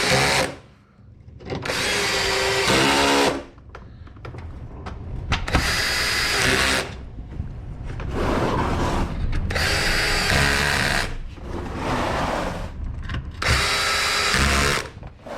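Handheld power driver with a 10 mm socket running in about six short bursts of a second or two each, spinning in and tightening the bolts of a car's sump protection plate.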